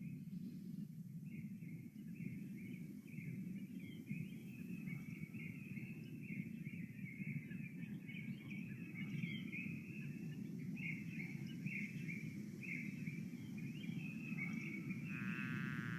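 Faint animal calls, short chirps repeating about once or twice a second, over a steady low noise; a buzzing tone joins about a second before the end.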